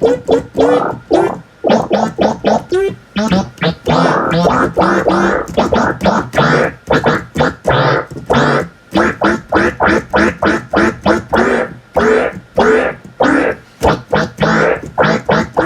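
Music built from rapid, choppy pitched bursts, several a second and often sliding up and down in pitch, in a scratch-like stutter.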